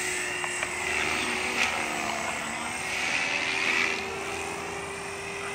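Mikado Logo 480 electric RC helicopter in aerobatic flight: motor and rotor whine that swells and shifts in pitch as it manoeuvres, loudest about a second and a half in and again near four seconds.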